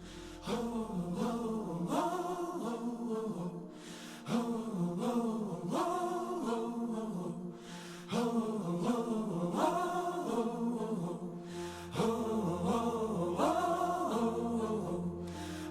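Music played back from an Aiwa XK-S7000 cassette deck: wordless, chant-like vocal phrases of about four seconds each, over a low sustained drone that comes back in near the end.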